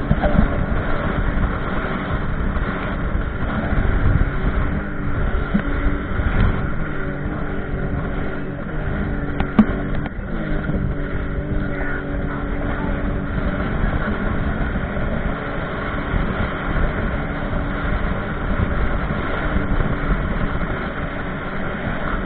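Jet ski engine running steadily at speed, with water rushing along the hull. A sharp knock comes about ten seconds in, and the engine pitch dips briefly and recovers just after.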